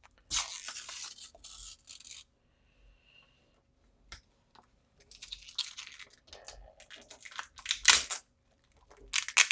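Sealing strip being peeled off a new battery's filler holes: a tearing, rasping noise for about two seconds, then more scraping and crinkling of the strip and packaging from about halfway, with a sharp sound near the end.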